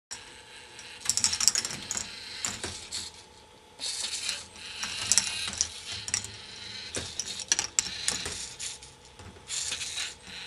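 K'nex ball machine running: balls rolling and clattering along plastic tracks and parts, with many sharp clicks and rattles coming in bunches, over a faint steady tone.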